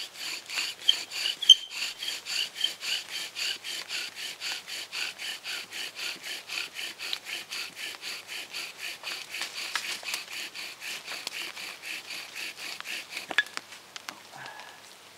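Bow drill with a balsam fir spindle and hearth board, the spindle driven back and forth by a paracord bow. It makes a rhythmic rasping squeak, about three to four strokes a second, as the friction works toward an ember in damp conditions. About thirteen seconds in the strokes stop suddenly with a click as the spindle flips out of the board.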